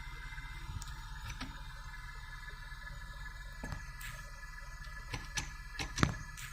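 Dodge engine running with a steady low hum, with irregular sharp clicks and knocks over it, the loudest near the end; the engine has a random misfire (P0300 code) after a tune-up.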